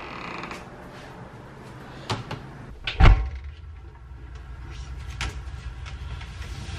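Whirlpool front-loading washing machine's door and drum being handled: a couple of knocks about two seconds in, a heavy thump about a second later, then lighter clicks and knocks.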